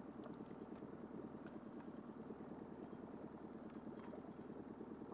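Boat motor running steadily at trolling speed, with a few faint ticks over it.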